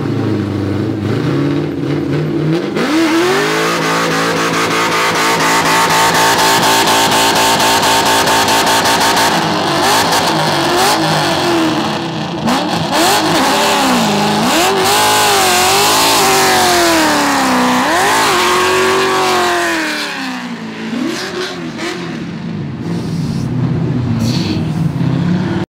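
C5 Corvette's V8 revving hard through a drift, its rear tyres spinning. The engine pitch climbs about three seconds in, holds high, then swings up and down repeatedly through the slide before easing off near the end.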